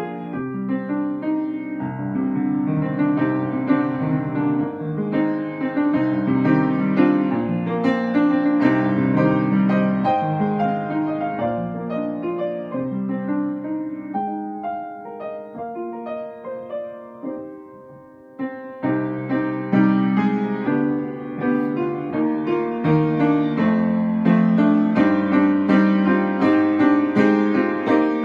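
Solo grand piano playing a flowing passage that grows softer and thins to a brief near-pause about 18 seconds in, then picks up again, fuller and louder.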